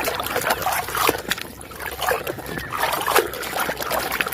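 Water splashing and trickling, with irregular small clicks and knocks, as a muddy plastic toy is scrubbed and rinsed.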